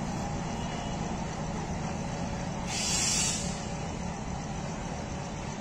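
Diesel locomotive engine running steadily as the train moves slowly, with a short burst of air hissing from the brakes about three seconds in.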